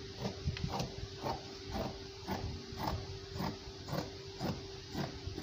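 Tailor's scissors snipping through printed fabric in a steady run of cuts, about two a second, over a steady hum.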